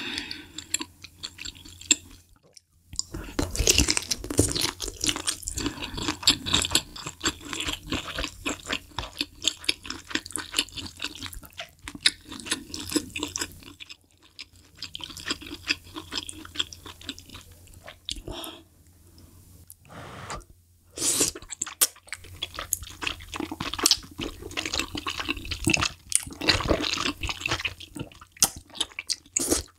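Close-miked eating of malatang: wet chewing and smacking, with slurps as wide glass noodles are drawn from the spicy broth into the mouth.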